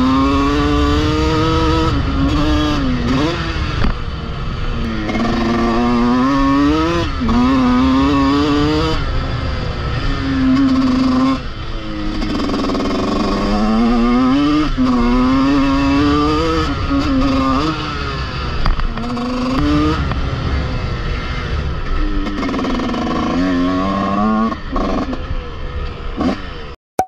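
TM 125 two-stroke single-cylinder motocross engine being ridden hard from on board, its pitch climbing as the throttle opens and dropping back again and again through gear changes and off-throttle moments. The sound cuts off abruptly at the very end.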